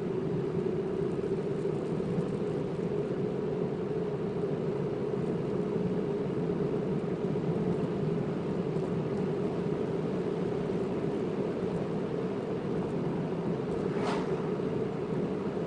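Steady engine and road noise heard from inside a moving car through a phone's microphone, with one brief sharp sound near the end.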